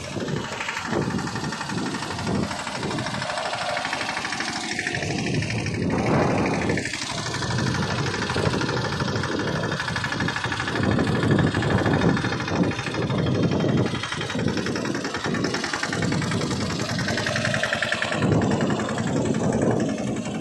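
ACE Veer 20 mini tractor's diesel engine running steadily under load as it pulls a tined cultivator through a field, with a fast low pulsing and small swells in level.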